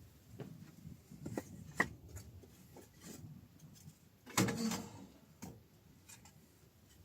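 Soft knocks and clicks of objects being handled, with a louder clatter about four and a half seconds in.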